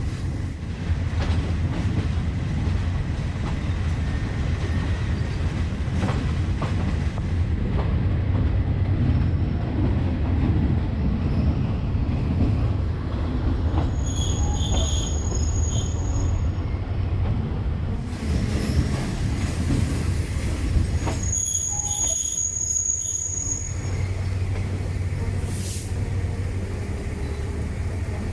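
Passenger train running along the track, a steady low rumble of wheels on rail, with two short spells of high-pitched wheel squeal midway through and again a few seconds later.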